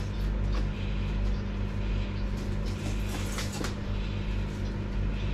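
Steady low electrical hum of a running kitchen appliance, with scattered light clicks and knocks of kitchen handling.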